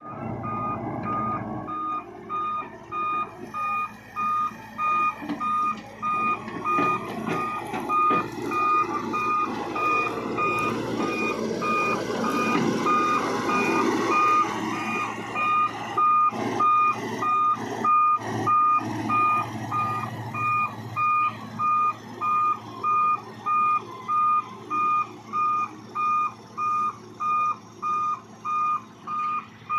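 Hitachi EX60 excavator's travel alarm beeping steadily, about one and a half beeps a second, over the machine's diesel engine and hydraulics working. The machine noise grows louder midway, with a few sharp knocks.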